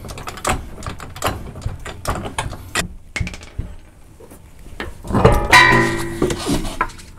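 19 mm lug nuts being spun off the wheel studs by hand and gathered, a run of small metallic clicks and clinks. About five seconds in comes a louder ringing metallic clang that dies away over a second or so.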